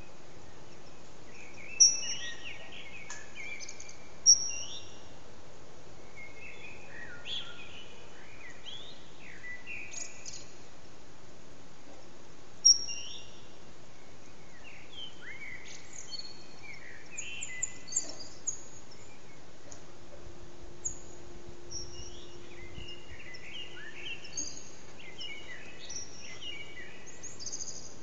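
Eurasian blackbirds singing their dawn song: phrases of warbling, gliding notes with short pauses between, with a few sharp high notes, over a steady background hiss.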